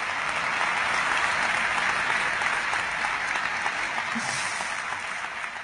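A large audience applauding, swelling at first and then slowly dying down.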